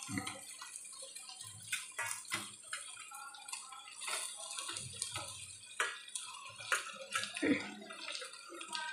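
Bitter gourd, onion and green chillies sizzling as they fry in oil in an open pressure cooker. A metal utensil scrapes and clicks against the pot as the mix is stirred.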